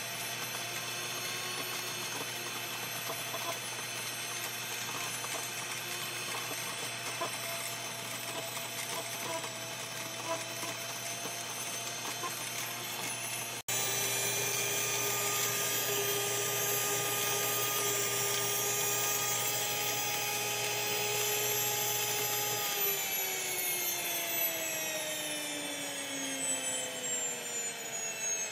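NutriMill electric grain mill running with a steady high whine as it grinds red popcorn kernels into meal. About 23 seconds in the motor is switched off and the whine falls steadily in pitch as it spins down.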